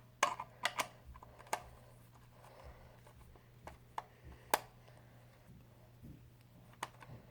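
Scattered light clicks and taps of a screwdriver working a screw out of a plastic toy blaster's battery cover, the loudest taps about half a second and four and a half seconds in.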